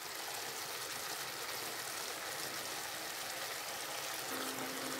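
Grated raw potatoes cooking in water in a pot on the gas stove, bubbling with a steady simmering sound.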